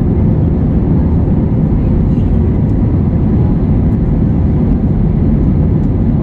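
Steady, loud low rumble of a vehicle in motion, with a faint steady hum in it.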